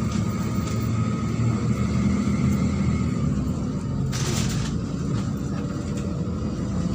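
Neman city bus driving, its engine and road noise heard from inside the cabin as a steady low rumble. A short hiss comes about four seconds in.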